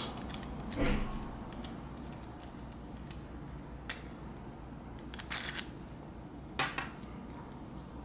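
Hard plastic parts of a GoPro suction cup mount being twisted apart and handled: a few separate clicks and scrapes, the loudest about two-thirds of the way through.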